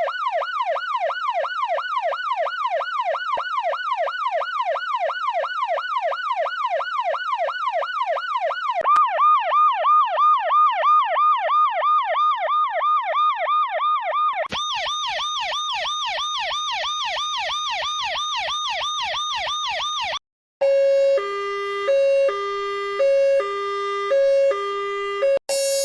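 A series of electronic emergency-vehicle sirens. First come fast yelp sweeps, about three a second, which switch abruptly to a louder yelp of a different tone about nine seconds in and to a brighter one about five seconds later. After a brief break near the end, a two-tone hi-lo siren alternates between two pitches.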